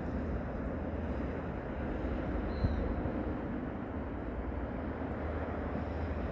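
Steady low ambient rumble, with a small click about two and a half seconds in.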